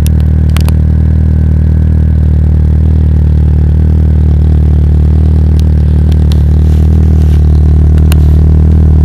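Citroën Saxo with an aftermarket exhaust idling steadily, a loud, even low exhaust note, with a few faint sharp ticks.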